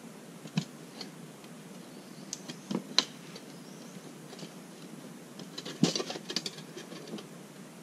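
Camping gear being handled on a kayak: scattered light clicks, knocks and rustles, with the sharpest knock about three seconds in and a quick run of clatters a little before six seconds.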